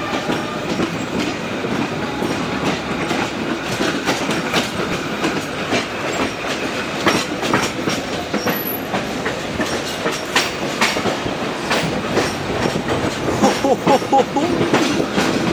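Train running along the track, heard from inside a carriage at the window: a steady rumble of wheels on rails with irregular clicks and knocks from the rail joints.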